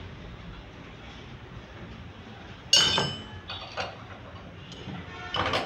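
Low steady background noise, then about three seconds in a sharp clink that rings briefly, followed by several lighter clinks and knocks.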